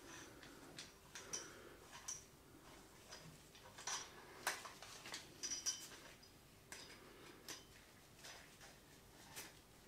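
Gimbal quick-release plate and thumbscrew being handled and fitted to a camera: faint, irregular small clicks and taps of metal and plastic parts, some with a short metallic ring.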